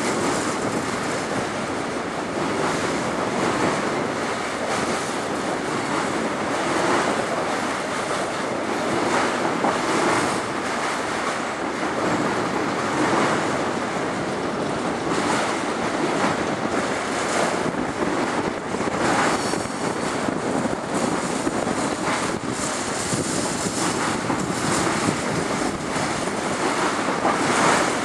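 Long freight train of autorack cars rolling past: a steady rushing rumble of steel wheels on rail.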